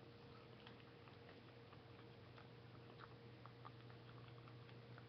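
Near silence: faint clicks and smacks of a jelly bean being chewed, over a steady low hum.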